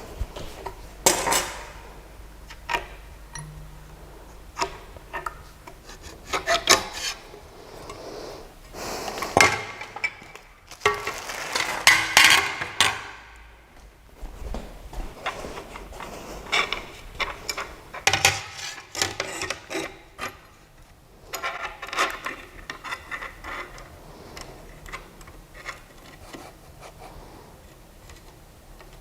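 Irregular handling noises: rubbing and scraping with scattered clicks and knocks, loudest around ten to thirteen seconds in and again near eighteen to twenty-two seconds.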